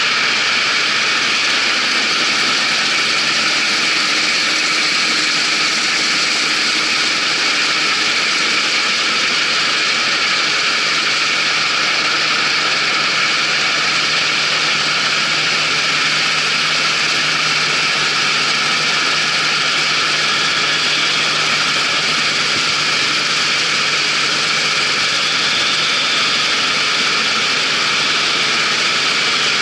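Claas Dominator 88 combine harvester running steadily during harvest: a dense, even clatter of engine and machinery that holds without a break.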